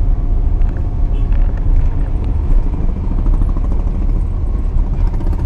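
Loud, steady low rumble of a car's engine and tyres on the road, heard from inside the cabin while driving.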